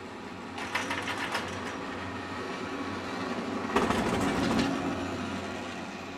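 Chairlift rope and chair grip clattering over the sheave rollers of a lift tower on a VR 101 chairlift: a spell of rapid rattling about half a second in, then a louder clatter with a rumble about three and a half seconds in, over a steady low hum.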